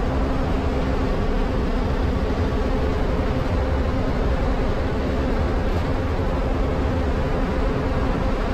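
MSRTC bus engine running steadily at highway cruising speed, heard from inside the front of the bus, with road and wind noise. A steady low hum holds with no change in pace.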